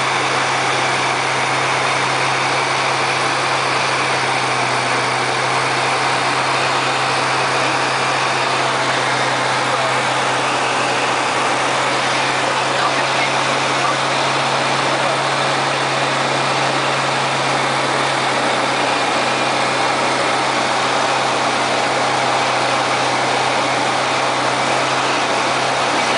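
Diamond Katana DV-20's Rotax 912 engine and propeller droning steadily, heard inside the cockpit over a constant rush of airflow noise, on final approach to land.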